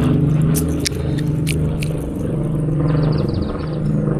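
A steady low engine hum, like a running vehicle, throughout. On top of it come a few sharp clicks in the first two seconds and a short run of rapid high ticks about three seconds in.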